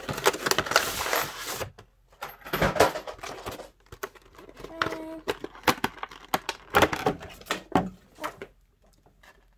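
Clear plastic packaging of a Pokémon card box crinkling and clicking as it is handled and pulled open, in several bursts with short pauses.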